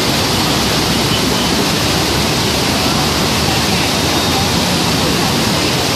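Godavari river in flood: fast floodwater rushing, a loud, steady, even roar of water.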